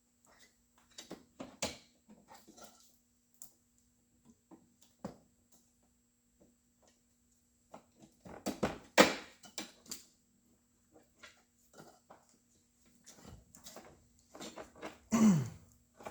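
Intermittent clicks, knocks and rustling from hands working on a car dashboard wiring harness, with a louder clatter about nine seconds in and a short falling tone near the end.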